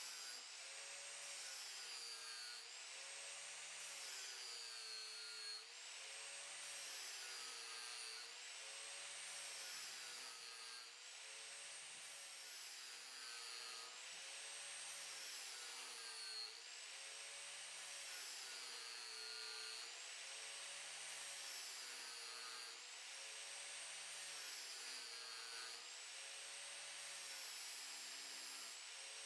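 Electric angle grinder with its disc grinding the steel edge of a lawn mower blade, running continuously. Its motor pitch dips and recovers in a regular cycle about every two seconds as the disc is swept back and forth along the edge.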